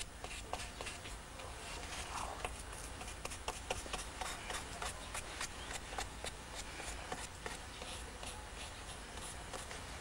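Irregular light ticks and scrapes of a hand tool worked against washi paper pasted on a lacquered vessel, over a low steady hum.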